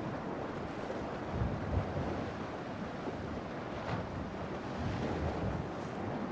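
Wind buffeting the microphone outdoors: a steady rushing noise with low rumbling gusts about a second and a half in and again near five seconds.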